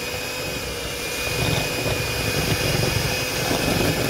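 Electric kitchen mixer running steadily with a whine, its beaters churning through ingredients that are not at room temperature, so the motor is working hard. The low churning grows heavier about a second in.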